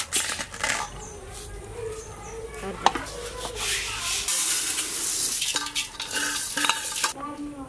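A perforated metal ladle scraping and stirring dry moong dal roasting in a metal pot, with sharp metal clinks. About halfway through, the roasted dal grains pour out of the tipped pot into a steel bowl with a rattling hiss.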